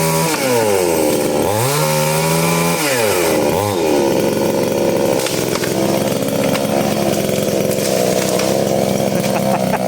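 Off-road vehicle engine under load, revving hard. The revs drop and climb again a few times in the first four seconds, then hold fairly steady at high revs.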